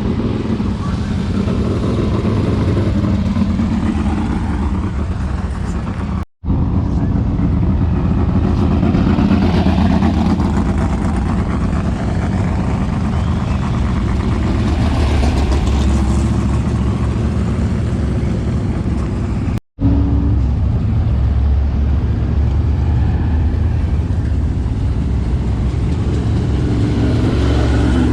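Steady low engine rumble of motor vehicles running, cut off abruptly twice for an instant.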